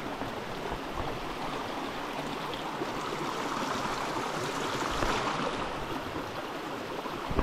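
Small mountain creek running low and shallow over rocks: a steady sound of moving water.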